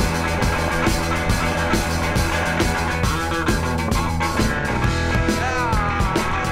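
Blues-rock soundtrack in an instrumental passage: steady drum beat, bass and electric guitar. Near the end a guitar note slides down in pitch.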